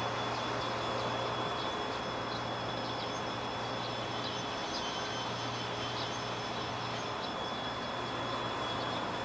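Steady outdoor background noise with a low hum and a thin, steady high-pitched tone, with no distinct event.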